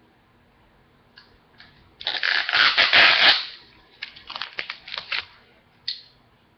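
Plastic packaging on a DVD case being peeled and crinkled by hand: a long ripping sound about two seconds in, then a second or so of crackling, and a single click near the end.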